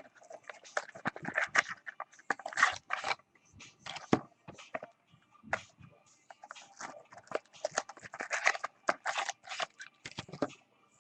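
Trading-card packaging and cards being handled and opened by hand: irregular crinkling, scraping and clicks of wrapper and cardboard.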